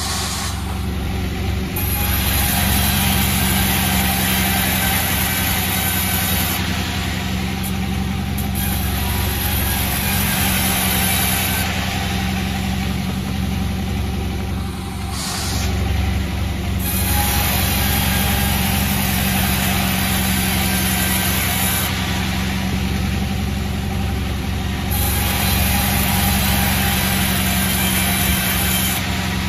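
Sawmill running: a steady machine hum under the rushing noise of the saw cutting through timber, which eases off for about a second about halfway through.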